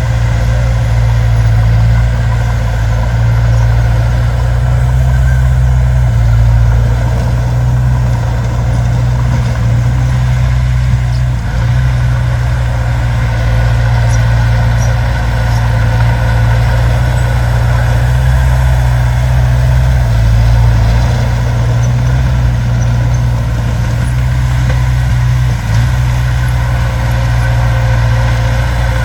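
Diesel engine of a heavy earthmoving machine running steadily, a loud, deep, even hum.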